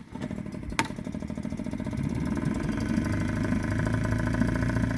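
Small boat's outboard motor starting up abruptly, running unevenly for about two seconds, then settling into steady running. A sharp click about a second in.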